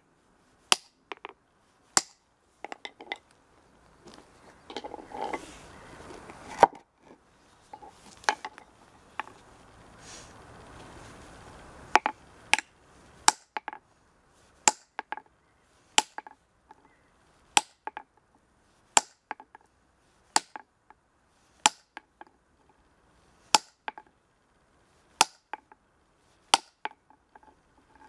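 Club hammer striking a steel splitting chisel held against a granite block along a marked line: sharp, ringing metal-on-metal hits at about one every second and a half. In the first half the hits are fewer, with a few seconds of rough, noisy scraping among them.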